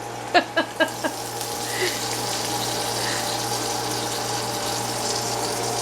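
A few short pitched clinks in the first second, then a steady hiss builds and holds: steam sizzling from a waffle maker cooking stuffed biscuit dough.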